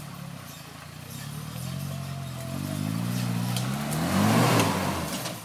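Off-road 4x4's engine revving up under load on a steep dirt climb, its pitch and loudness rising to a peak about four and a half seconds in, with a burst of noise at the peak, then cutting off suddenly near the end.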